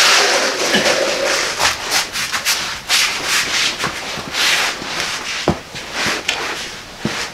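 Rough scraping and rustling of a floor mat being dragged across a concrete floor and a person getting down onto it and sliding under a truck on a creeper. A couple of sharp knocks come about five and a half and seven seconds in.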